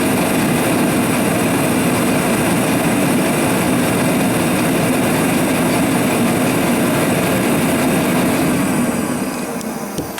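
Sears forced-air torpedo heater running: its blower and burner make a steady rushing noise that gets quieter near the end. The heater is firing, but its combustion air still needs adjusting.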